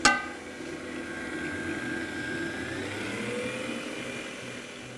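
Kenwood Cooking Chef XL stand mixer running, its whisk beating egg whites as sugar is added; the motor's whine rises a little in pitch about halfway through. A sharp clink with a short ring comes right at the start.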